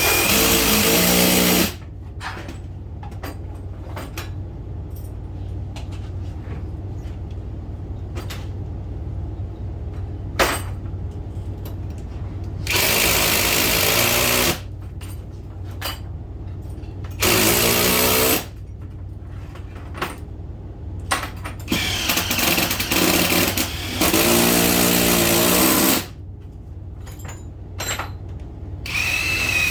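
Power drill running in several short bursts of one to two seconds each, its motor pitch shifting under load, with knocks and clicks in the quieter gaps between.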